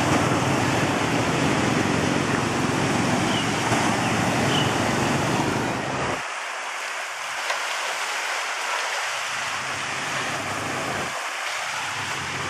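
A motorbike towing a tuk-tuk carriage runs through floodwater, its small engine droning under the wash of splashing water. About six seconds in the engine sound cuts off abruptly, leaving a steady rushing hiss.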